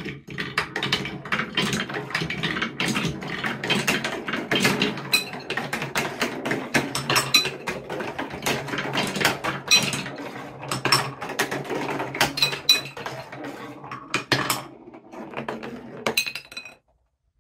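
Several plastic marble-run balls rolling and clattering down wooden and plastic track, with a continuous rumble broken by many sharp clicks as they cross track joints and branch pieces. Near the end the balls drop into a bowl of water, and the sound cuts off suddenly.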